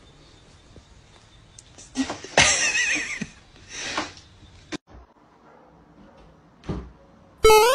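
A loud noisy sound lasting about a second starts a little after two seconds in, with a shorter one about a second later. Near the end a door's hinge squeaks in a quick rising glide that sounds like "yippee!".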